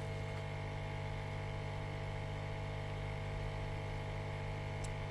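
Steady electrical hum with a stack of even overtones and a faint hiss, unchanging throughout; one tiny click near the end.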